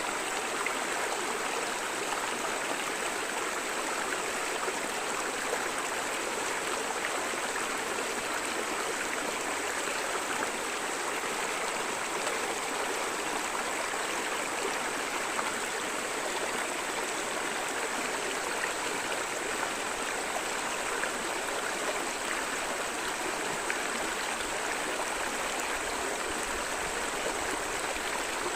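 River water flowing, a steady rushing with no breaks.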